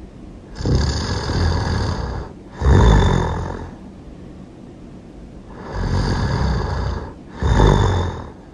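Loud snoring in two cycles, each a long rasping breath followed at once by a shorter, louder snore, with a pause of a couple of seconds between cycles.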